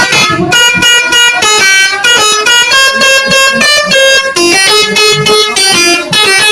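A bus's telolet horn, a multi-tone musical air horn, playing a loud tune. It sounds chords of held notes that change pitch every half-second or so, with short breaks between them.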